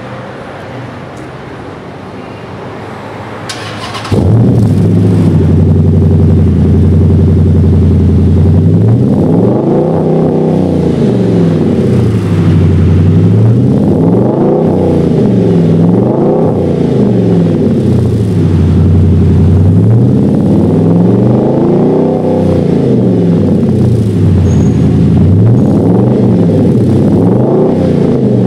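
2009 Dodge Charger SRT8's 6.1-litre Hemi V8 through a newly fitted ZOOMERS aftermarket muffler. The engine starts about four seconds in and idles steadily, then from about nine seconds on it is revved in repeated blips, each rising and falling in pitch, about one every two seconds.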